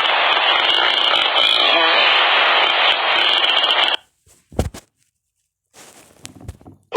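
Dinosaur sound effect: a harsh, rasping hiss-roar with no clear pitch, held for about four seconds and cut off abruptly, followed by a short low thud.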